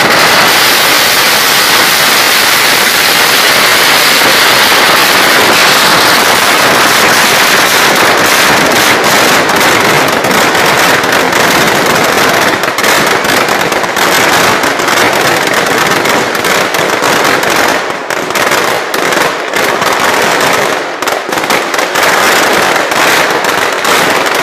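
Firecrackers packed into a burning Dussehra Ravana effigy going off in a dense, continuous crackle of rapid pops and bangs, easing a little about three-quarters of the way through before picking up again.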